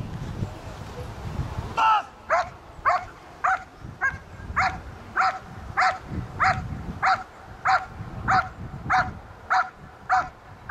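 Low rumbling noise for about two seconds, then a protection-trained working dog barking steadily and rhythmically, about one bark every 0.6 seconds. The barking is the dog guarding the helper after releasing the bite sleeve.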